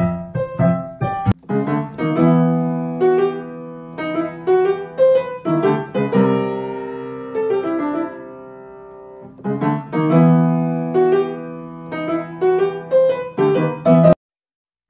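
Background piano music: a light melody of struck notes over held low chords, which cuts off abruptly just before the end.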